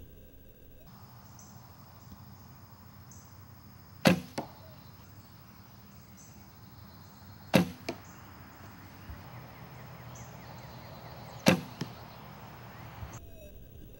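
Three shots from a traditional recurve bow, a few seconds apart: each a sharp slap of the string on release, followed about a third of a second later by a fainter knock as the arrow strikes the 3D animal target.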